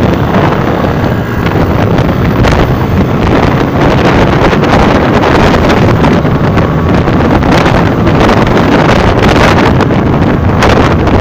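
Wind buffeting the microphone of a moving vehicle, loud and gusty, over the steady rumble of road and traffic noise.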